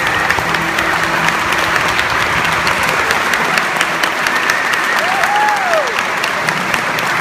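Audience applauding, a dense patter of hand claps in a reverberant church, with one high rising-and-falling call from the crowd about five seconds in.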